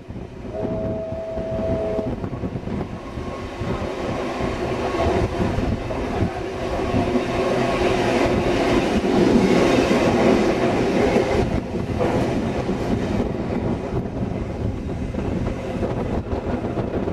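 Heritage train carriage in motion behind a steam locomotive: wheels rumbling and clattering over the rail joints, loudest about halfway through. A brief two-note whistle sounds about a second in.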